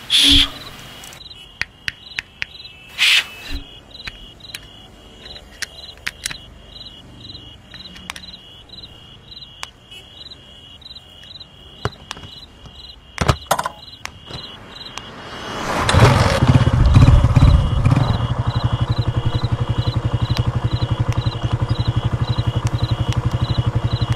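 Crickets chirping in an even pulse about twice a second, with a few scattered sharp clicks. About sixteen seconds in a scooter's engine starts with a loud burst and settles into a steady idle.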